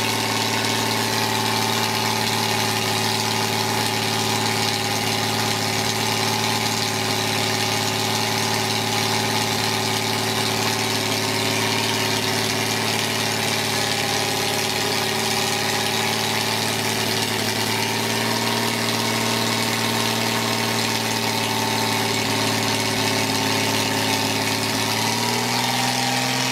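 Rebuilt pre-war BMW 319 2.0-litre six-cylinder engine running steadily on an engine dyno during its first start-up and running-in. Its speed changes near the end.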